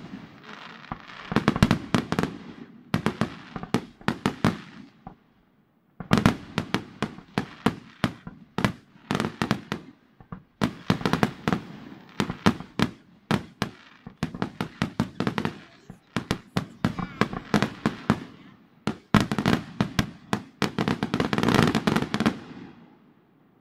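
Fireworks display: aerial shells bursting in quick clusters of sharp bangs, with stretches of dense crackling. The sound drops out to silence briefly a few times.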